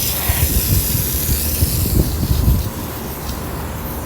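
Water rushing out of a freshly cleared HVAC condensate drain line, a steady hissing spray that eases a little under three seconds in, over a low rumble.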